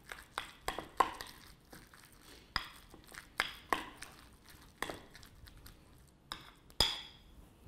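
A metal utensil stirring a thick crab filling in a ceramic bowl, clinking and tapping against the bowl in short, irregular clicks.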